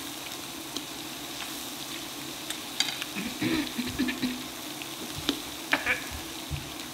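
Meat, onions and jalapeño slices sizzling on the hot grill plate of an electric hot pot and grill, a steady hiss with scattered clicks of a metal fork on the plate.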